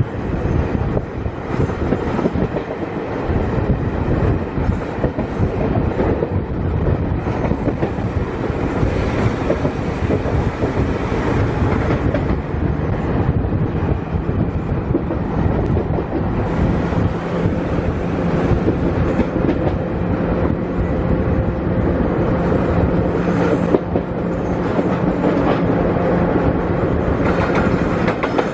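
Passenger train coaches running at speed, heard from an open doorway: wheels rattling and clacking over the track, with rushing air. A steady low hum joins about halfway through.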